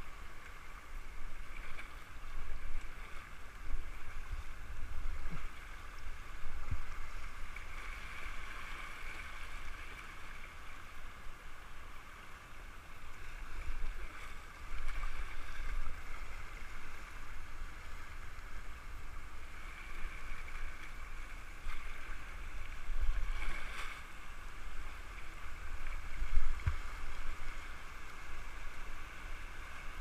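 River water rushing over shallow rapids around an inflatable kayak, a steady hiss over an uneven low rumble. A few brief thumps, the loudest near the end.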